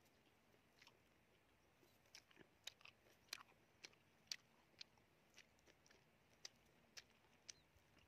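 A person chewing raw honeycomb: a run of short, sharp, wet clicks and crunches at an uneven pace, starting about two seconds in.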